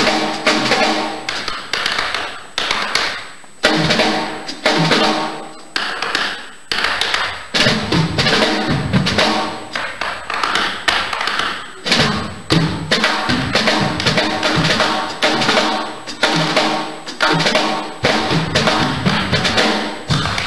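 Music led by a drum kit keeping a strong, steady beat, with loud hits about once a second and a melody instrument playing over it.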